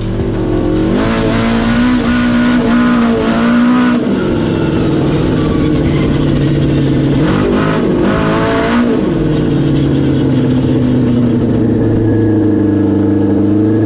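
Supercharged Yamaha RX1 snowmobile engine, an inline-four four-stroke, running unmuffled in a car and heard from inside the cabin as it is driven. The revs climb about a second in and ease off around four seconds, dip and pick up again around eight seconds, then pull steadily, rising slowly near the end.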